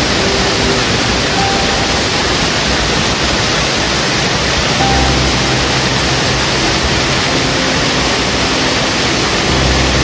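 Steady, even rush of a waterfall and its cascade, water pouring over rocks. Soft background music with long held low notes plays over it.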